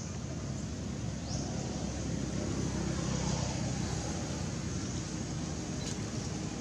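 Steady low background rumble, swelling slightly in the middle.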